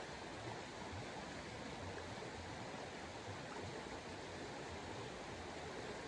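Steady, even rushing noise of outdoor ambience with no distinct events.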